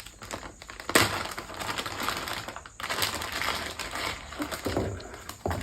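Crackling and clattering of packaging and plastic drone-frame parts being handled, with a sharp click about a second in and more scattered clicks near the end.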